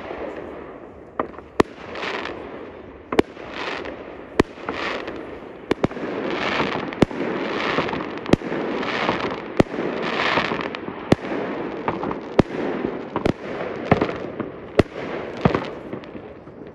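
Fireworks going off: sharp bangs roughly once a second over swelling waves of crackling hiss.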